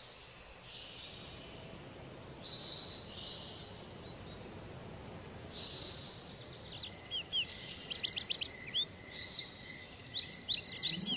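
Birdsong: a few short high calls a few seconds apart, then a quick run of rapid chirps from about seven seconds in, over a faint steady high tone.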